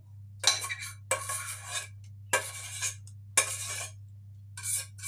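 Metal spoon scraping béchamel sauce from the inside of a stainless steel saucepan, about five strokes roughly a second apart, over a steady low hum.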